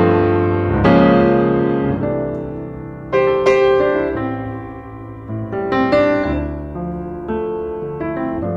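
Background piano music: chords and single notes struck every second or two and left to ring and fade.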